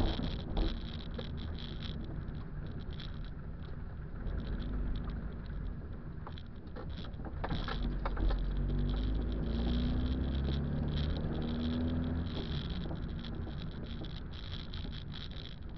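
Car interior noise while driving slowly on a wet road: a low engine and road rumble with tyre hiss. The engine note rises about eight seconds in, as the car speeds up, and eases off a few seconds later, with a few light clicks before it.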